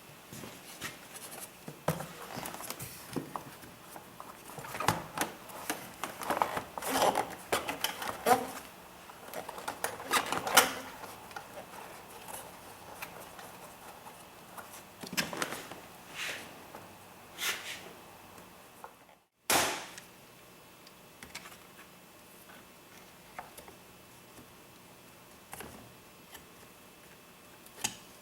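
Hands working on parts in a car's engine bay: irregular clicks, taps and rustling, busiest in the first half, with a short drop-out and a sharp knock about two-thirds of the way through.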